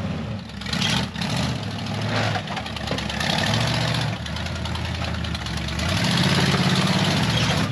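Off-road vehicle engine running under load on a trail, its pitch rising and falling as it revs, growing louder in the last couple of seconds.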